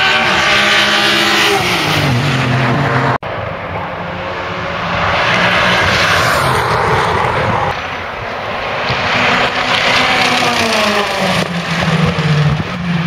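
Racing cars passing close by at speed, one after another, each engine's pitch falling as it goes past. The sound cuts out for an instant about three seconds in.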